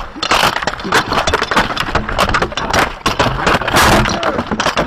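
Dense, irregular clatter of many knocks and cracks: rattan weapons striking shields and armour in an armoured-combat melee.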